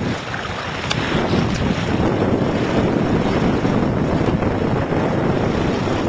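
Wind buffeting the microphone over water rushing and slapping against the hulls of a small inflatable sailboat under sail. The noise is steady and unbroken.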